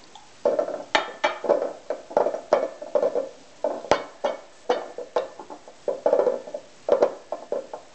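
Hands squeezing and working wet pie-crust dough (flour, Crisco shortening and water) in a mixing bowl, with repeated squishing pushes about twice a second and a few sharp knocks of the hand against the bowl. This is the water being worked into the crumbly mix so that it forms a soft ball.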